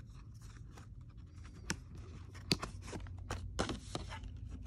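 Hands handling paper and a cardboard box: soft rustling with scattered light taps and clicks, a little denser near the end.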